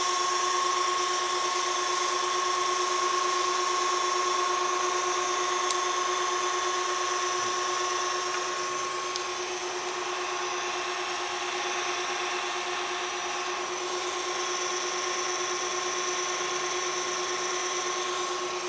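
Steady hum and whine of running electrical equipment: two constant tones, one low and one higher, over an even hiss. It gets slightly quieter about nine to ten seconds in.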